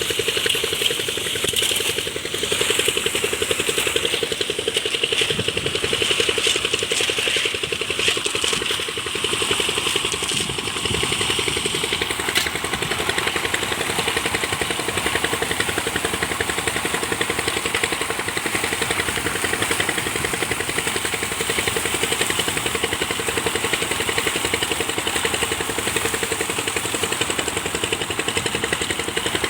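An engine running steadily at a constant speed, with an even, fast mechanical beat and no change in pitch.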